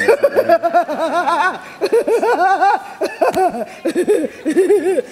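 A woman laughing gleefully in rapid runs of "ha-ha-ha", about four bouts with short breaks between them.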